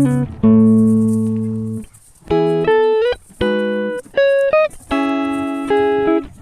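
Background music: a slow run of plucked, guitar-like notes and chords, each struck and left to ring out.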